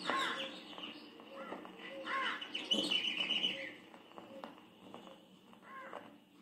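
Wild birds calling: repeated short arching calls, louder in the first half, with a brief trill about three seconds in.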